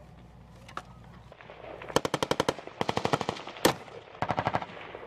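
Automatic weapon fire close by: three short, rapid bursts starting about two seconds in, with one louder single shot between the second and third, fired as tracers to mark a target.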